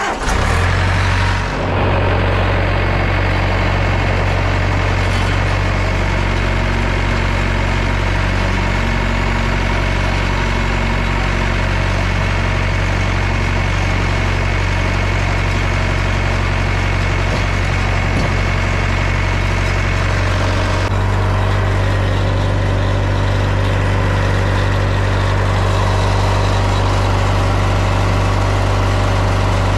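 Wood-Mizer LT50 portable sawmill running steadily under power, with a change in its sound about 21 seconds in.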